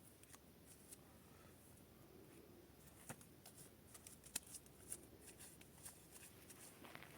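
Near silence with faint, scattered clicks and light rustling, most of them a few seconds in.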